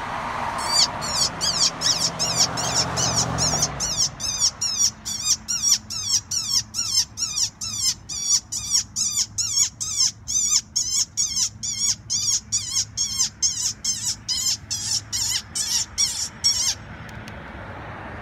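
Pocket Prey electronic game call playing a rapid, even string of short, high-pitched squeals, two or three a second, that stops abruptly about a second before the end. A car passes during the first few seconds.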